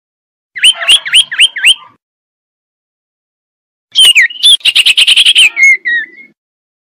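Male common iora calling: a quick run of five short notes that dip and rise, then after a pause of about two seconds a longer phrase of a falling note, a fast trill and a few lower notes at the end.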